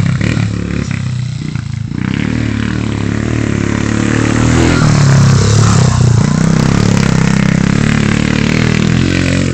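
Pit bike engine running as the bike is ridden, revving up with a rise in pitch about four to five seconds in, then easing back to a steady run.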